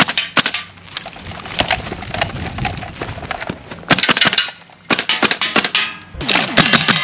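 Gas blowback airsoft rifle firing about five short, rapid bursts with brief pauses between them.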